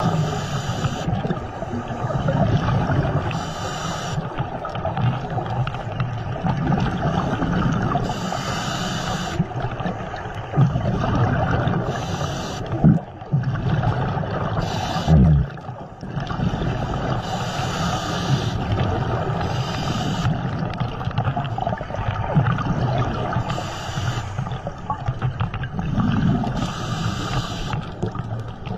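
Scuba breathing heard underwater: a regulator hissing in short spells about every three to four seconds over a steady rush of bubbles and water noise. Two brief knocks sound near the middle.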